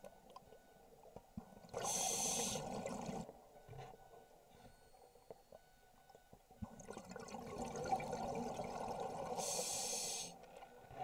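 Scuba diver breathing through a regulator, heard underwater. There are two breaths, about two seconds in and again from about seven seconds in, each a regulator hiss together with a rush of exhaled bubbles.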